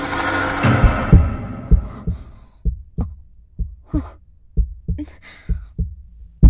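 Heartbeat sound effect: a low double thump about once a second, with short breathy sounds between some of the beats. A loud hiss fades out over the first two seconds.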